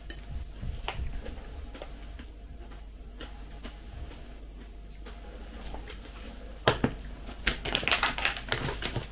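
Handling of a paper-and-plastic food packet: a few faint clicks, then from about two-thirds in a burst of sharp crinkles and taps as the packet is moved and set down on the table.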